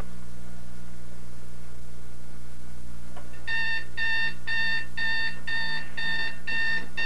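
Electronic alarm clock going off, beeping about twice a second from about halfway through, over a steady low hum.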